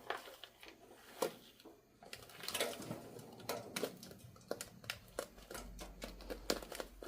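Broken-up salt being poured from a box into a tractor's metal fuel tank, the grains and lumps ticking and rattling irregularly as they fall in.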